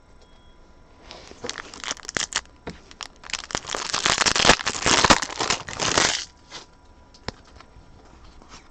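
A trading card pack's wrapper being torn open and crinkled, a crackling rustle from about a second in until about six seconds, loudest near the end.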